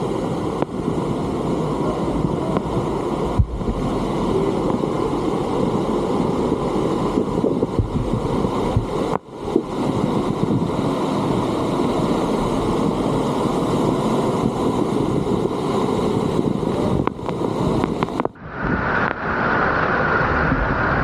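Loud, steady rush of Salto El Sapo waterfall pouring down close by, an even roar of falling water and spray. The sound drops out briefly twice, about nine seconds in and again near the end.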